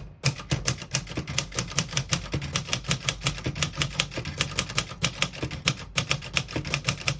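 1962 Singer Scholastic manual portable typewriter being typed on at a steady pace: a fast run of sharp typebar clacks, about seven or eight keystrokes a second, with a brief pause near the end.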